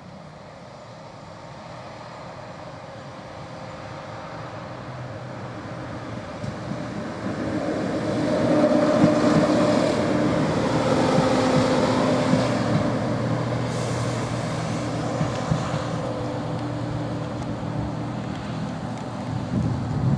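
Class 170 Turbostar diesel multiple unit approaching, passing over the level crossing and going away: its diesel engines and wheels on the rails grow louder to a peak about eight to twelve seconds in, then slowly fade. A car drives over the crossing near the end.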